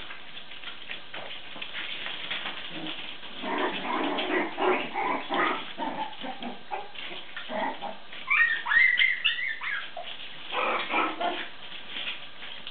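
West Highland white terrier puppies play-fighting, with short bursts of puppy noises and a run of high-pitched squeaky yips about eight to nine seconds in.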